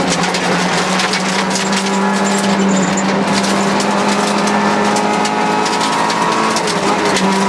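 Rally car engine held at steady high revs, heard inside the cabin, with gravel and stones clattering against the underbody on a loose gravel stage. The engine note dips briefly near the end.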